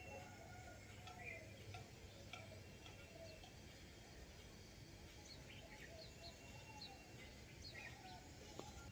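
Faint, distant birds chirping in short, scattered calls over quiet outdoor background.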